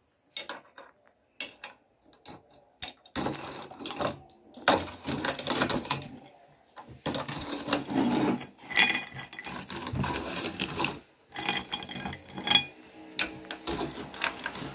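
Hand-cranked aluminium meat grinder being turned while it crushes hard lollipops: grinding and crunching with sharp clicks and metal rattles. It comes in stretches with short pauses, after a quieter start of a few clicks.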